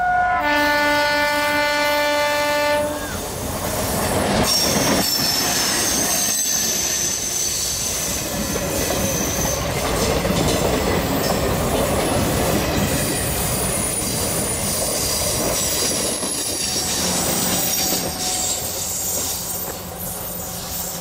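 Diesel multiple-unit passenger train sounding one long horn blast of about three seconds, then running past close by with loud wheel-and-rail rumble and clatter and a high squeal from the wheels. The noise eases in the last few seconds as the train pulls away.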